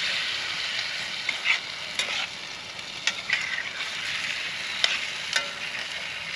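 Chicken bites sizzling as they fry in a pan over a campfire, a steady hiss. A cooking utensil scrapes and clicks against the pan several times at irregular moments as they are stirred.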